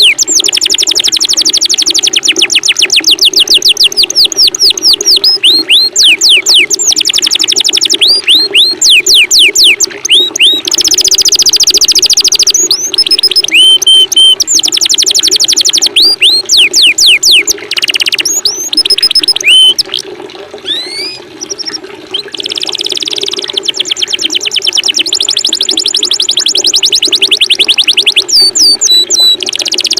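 Small songbirds singing fast trills of repeated downward-sweeping chirps, about ten a second, in long bouts broken briefly about two-thirds of the way through, over a steady running-water background.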